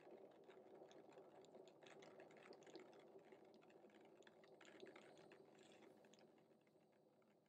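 Near silence: faint room tone with a low hum and soft, irregular small clicks.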